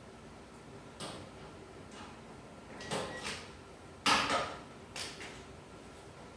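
Objects being handled: a few separate knocks and clatters, the loudest about four seconds in.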